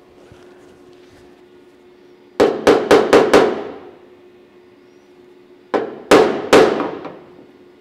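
Hammer tapping the steel replacement gutter section on a 1970 Holden HG ute's roof, knocking it into line: a quick run of about five ringing metal taps about two and a half seconds in, then three or four more near the end.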